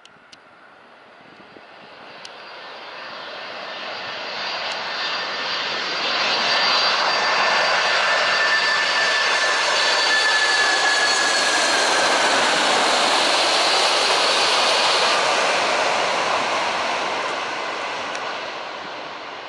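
Boeing 747-400F freighter's four turbofan engines on landing approach. The sound grows louder over the first six seconds, holds, then fades near the end, with a high fan whine that glides slightly down in pitch.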